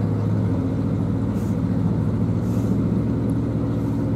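A narrowboat's inboard diesel engine running steadily as the boat cruises, a low even engine note with a fast regular pulse.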